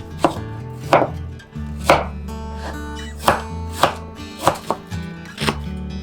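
Knife cutting on a cutting board, single irregular strokes about once a second, over soft background music.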